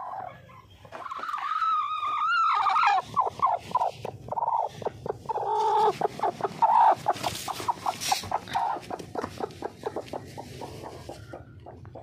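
Hen calling from a nest box: one long drawn-out call, then a quick run of clucks that trails off near the end.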